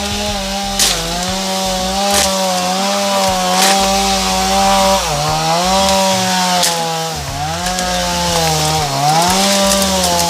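Two-stroke chainsaw running at high revs and cutting brush and small trees, its pitch dipping and recovering three times as it bogs down in the cut. A few sharp clicks are heard over it.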